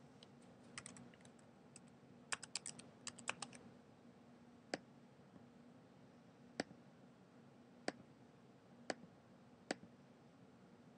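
Computer keyboard typing in two short runs of quick keystrokes, then single mouse clicks about a second or two apart, five in all.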